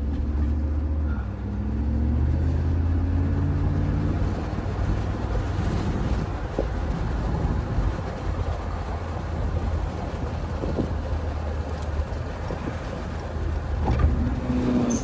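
Mercedes-Benz R129 SL driving, heard from inside the car: the engine note shifts in pitch over the first few seconds, then gives way to a steady road and tyre rumble with a few faint clicks.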